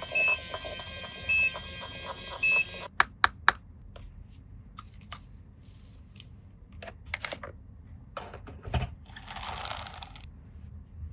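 Toy CT scanner playing its electronic scanning sound, with a short high beep about once a second, cutting off after about three seconds. Then come scattered small plastic clicks and taps as the toy is handled, with a brief rustle near the end.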